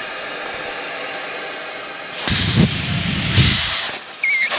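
Air hissing steadily out of a Jeep's tires through Skog automatic tire deflators set to 12 psi, airing down for snow. About two seconds in the rushing grows louder for over a second, and a short high squeal with a wavering pitch sounds near the end.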